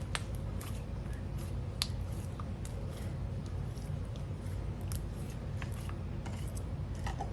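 Whipped slime with sprinkles mixed in being folded and pressed by hand, giving scattered small clicks and crackles with soft squishes.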